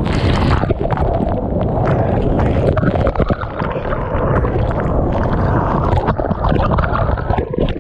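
Water rushing and splashing through an enclosed water slide tube as a rider slides down it, heard close up on a body-worn action camera, with a steady low rumble and many small splashes.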